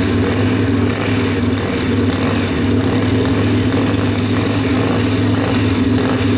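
Two drag-racing motorcycles, one of them turbocharged, idling at the starting line: a loud, steady engine drone with no big revs.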